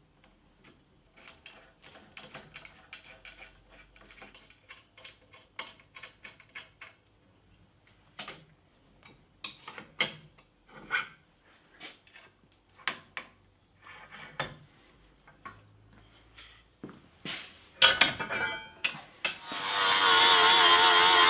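Scattered metallic clicks and knocks of hand tools working on a bead roller's steel shafts and frame as it is taken apart. About two seconds before the end, an angle grinder starts up and runs steadily, much louder than the clicks.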